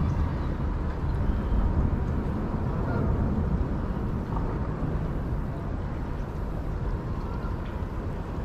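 Steady low rumble of river water pouring over a dam.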